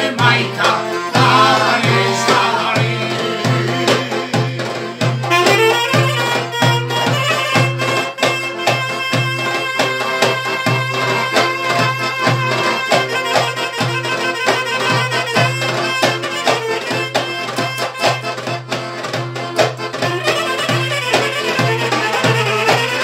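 Folk band music with a steady bass beat of about two pulses a second. A voice sings over it in the first few seconds, then an instrumental melody carries on.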